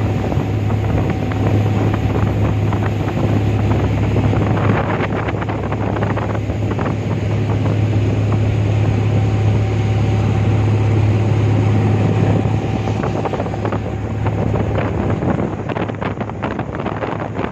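Passenger speedboat running at speed: a steady low engine drone under the rush of the wake and wind buffeting the microphone. The drone drops away about fifteen seconds in, leaving wind and water.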